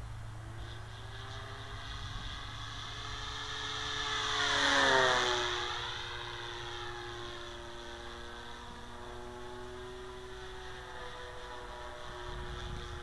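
The electric motor and propeller of an FMS 1400mm P-40B Warhawk radio-controlled model plane, whining as it flies. It grows louder to a close pass about five seconds in, its pitch dropping sharply as it goes by, then holds a steady, lower tone as it flies away.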